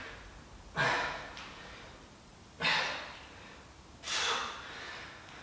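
A man breathing hard from exertion: three sharp, forceful exhalations about a second and a half apart, each fading out.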